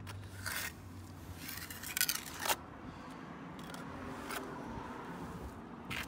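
A trowel scraping wet cement parge mix against a concrete foundation wall in several short strokes, pressing and spreading the mix onto the wall.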